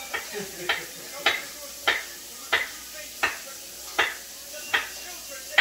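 A knife cutting down onto a cutting board in slow, even strokes: about eight sharp knocks, roughly one every two-thirds of a second.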